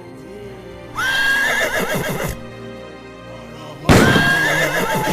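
A horse whinnying twice, about three seconds apart. Each call starts high and steady, then wavers as it falls, and the second is louder.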